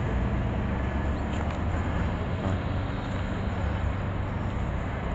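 Engine and road noise of a moving car: a steady low hum.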